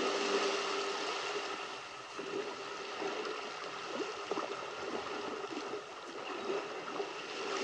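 Sea ambience from an animated soundtrack: a steady wash of water with faint held tones underneath.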